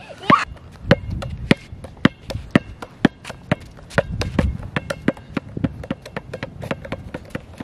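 A basketball being dribbled on asphalt: a run of sharp bounces, about two a second, some harder than others.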